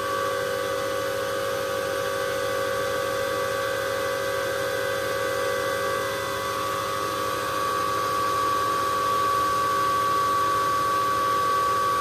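Antminer S9j bitcoin mining rig's cooling fans, together with its power supply's fan, running at full startup speed: a steady rush of air with a constant whine on top. The noise grows a little louder about two-thirds of the way in, and the fans have not yet slowed to their settled running speed.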